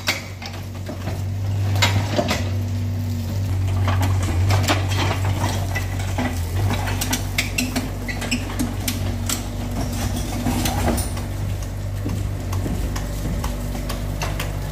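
Yanmar mini excavator's engine running steadily under hydraulic load, with bricks and rubble clattering and knocking irregularly as its demolition attachment breaks and pulls down a brick wall.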